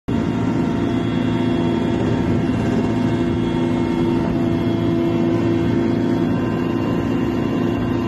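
Helicopter engine and rotor running steadily, heard from aboard the aircraft, a constant drone with a whine of steady tones over it.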